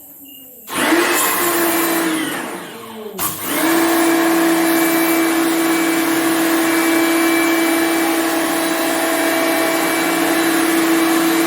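Lakoni Laguna 550-watt electric high-pressure washer running, its motor humming steadily over a loud hiss. It starts about a second in, cuts out briefly with a click about three seconds in, then runs steadily again and begins to wind down at the very end.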